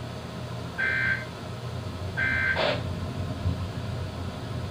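Emergency Alert System end-of-message data bursts: two short, buzzy two-tone SAME data bursts about a second and a half apart. A steady low hum runs underneath, and a brief crackle follows the second burst.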